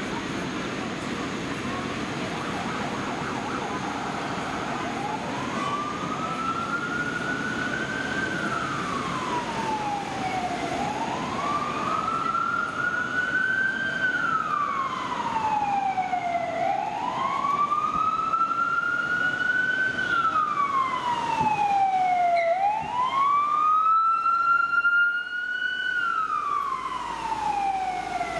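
American-style wail siren of an unmarked Volvo police car: a slow wail that rises for about three seconds and falls again, repeating about every six seconds, starting about five seconds in over city traffic noise.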